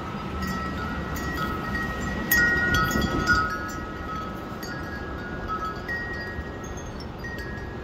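Wind chimes ringing with several long, overlapping tones over the low rush of strong, gusting wind, which swells about two and a half seconds in.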